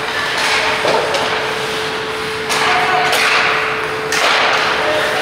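Ice hockey play in an echoing rink hall: skate blades scraping the ice and sharp knocks of sticks and puck, over a steady hum.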